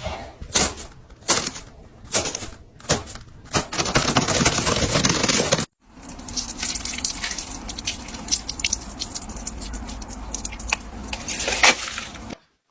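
Snow crunching and crackling as it is crumbled: a few separate crunches, then a dense crackle that cuts off suddenly about halfway. A second, finer crackling follows, with one sharp crunch near the end.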